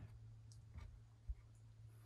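Near silence: a steady low hum with a few faint clicks and one short low thump about a second and a quarter in.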